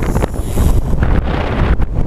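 Heavy wind buffeting on the microphone of a GoPro carried by a radio-controlled plane in flight: a loud low rumble that rises and falls in gusts.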